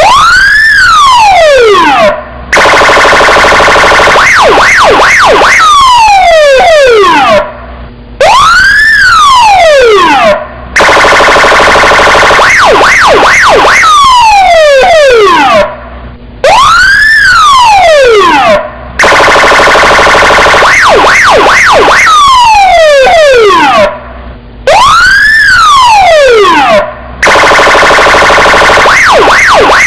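Electronic police car siren cycling through its tones: a rising then falling wail, a steady buzzing horn tone, a few quick up-and-down yelps, then a falling sweep. The sequence repeats about every eight seconds, with short breaks between the tones.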